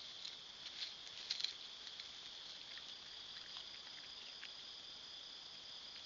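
Steady high chorus of night-singing insects, with a few faint crackles and clicks about a second in.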